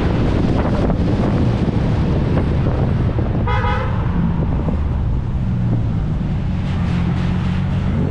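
A car engine running hard and continuously, with a short horn toot about three and a half seconds in.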